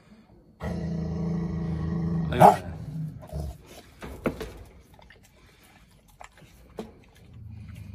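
Large black dog growling deep and steady over its raw meat for about two seconds. The growl ends in one loud, sharp snarl, followed by a few short sharp clicks as it bites at the meat and bone, and a lower growl near the end.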